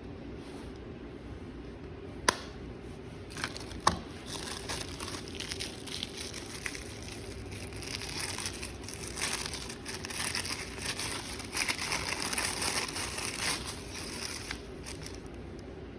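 Packaging being unwrapped by hand: two sharp clicks, then about ten seconds of dense crinkling and rustling, over a faint steady hum.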